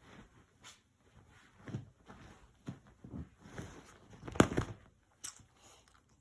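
A cockapoo snorting and sneezing in short, irregularly spaced bursts, the loudest about four and a half seconds in.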